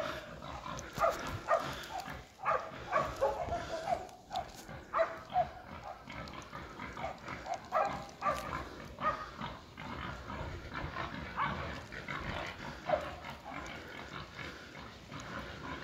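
Hunting dogs barking and yelping in quick short calls, thick over the first half and then fewer and fainter, as dogs do when working a wild boar.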